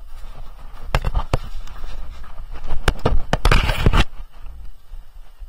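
Rubbing and scraping on a camera jostled on horseback, with a low rumble, a few irregular knocks, and a louder rushing burst about three and a half seconds in.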